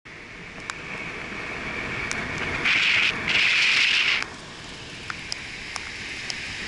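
Steady hiss of surf and wind on an open beach, with scattered light clicks and two loud hissing surges a little before the middle, one short and one about a second long.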